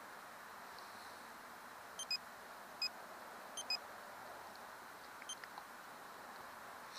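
A Bottom Line Sidefinder fish finder's keypad beeps as its buttons are pressed: six short, high beeps, some in quick pairs, over a steady background hiss.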